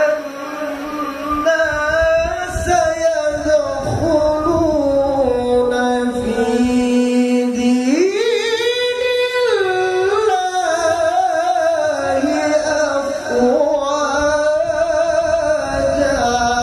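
Male qari's melodic Quran recitation (tilawah) through a handheld microphone: long, held, ornamented phrases that climb higher about eight seconds in and come back down a couple of seconds later.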